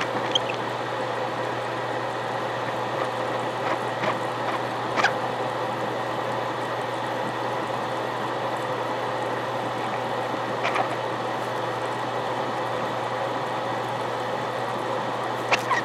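Steady hiss of an oxyhydrogen (HHO) torch flame, with a few sharp crackles.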